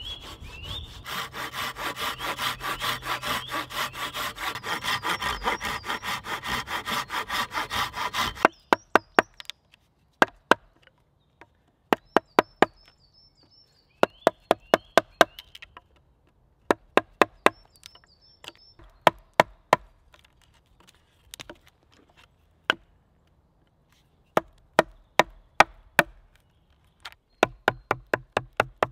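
Folding pruning saw cutting into a peeled pine log with quick, even strokes for about eight seconds, then a chisel driven into the wood by a mallet, sharp knocks coming in quick runs of several with short pauses as a notch is chopped out. Faint birdsong now and then.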